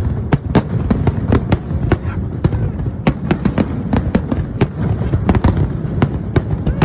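Aerial fireworks display: shell bursts going off in a rapid, continuous barrage of bangs, several a second, over a steady low rumble.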